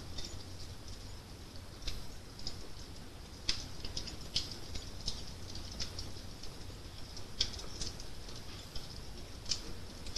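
Wood fire crackling: irregular sharp snaps and pops over a low, steady rumble, with a handful of louder pops scattered through.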